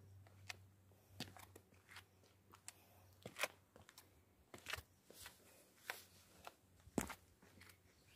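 Faint footsteps crunching on a stone and gravel path, uneven steps coming about once a second.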